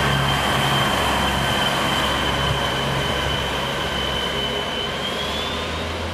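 Northern Class 142 'Pacer' diesel multiple unit pulling away from the platform: its underfloor diesel engine runs with a low rumble, with a steady high whine that rises slightly in pitch near the end. The sound fades gradually as the unit moves off.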